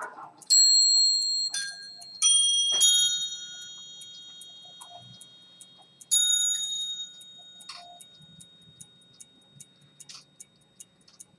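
Quick, even ticking of a key-wound fusee pocket chronometer's pivoted-detent escapement. Over the ticking, bright bell-like chimes strike several times, each ringing on and fading slowly.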